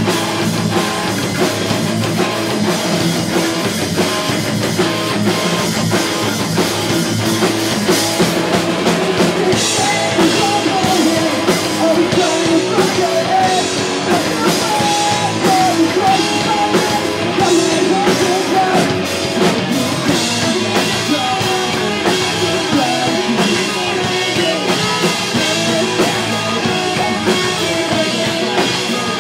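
Rock band playing live with electric guitars, bass and a drum kit, in a pop-punk/emo style; the cymbals fill in and the band gets fuller about ten seconds in.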